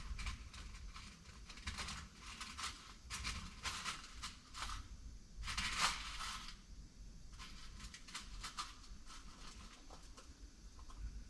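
Rummaging by hand through a bin of small screws and hardware: scattered clicks and rattles, with a louder rustling, clattering patch about six seconds in.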